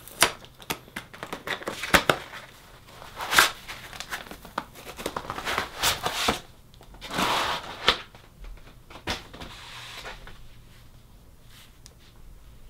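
Packaging crinkling and tearing as a chair armrest part is unwrapped and handled, with scattered clicks and knocks; it dies down near the end.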